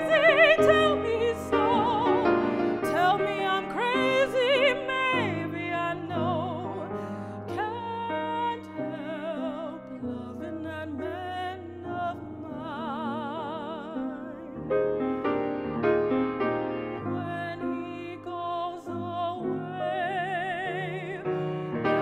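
A woman singing in operatic style with a wide vibrato on long held notes, accompanied by piano.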